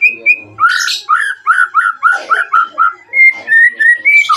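White-rumped shama (murai batu) singing: a few clear whistled notes, then a quick run of about eight rising slurred whistles, then higher whistles near the end.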